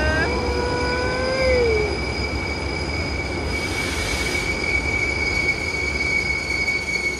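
Train wheels squealing against the rails in a steady high-pitched tone over the rumble of a moving train. A second, lower squeal slides down in pitch and fades out about two seconds in, and there is a brief hiss around four seconds in.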